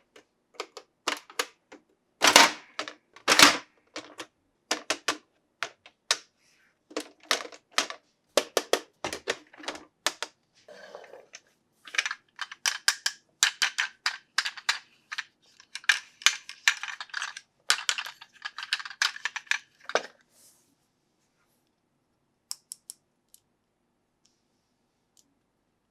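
Toy pieces and packaging being handled: many short sharp clicks and taps, with two louder, longer bursts about two and three seconds in and a dense run of clicking in the second half. It goes quiet for the last few seconds.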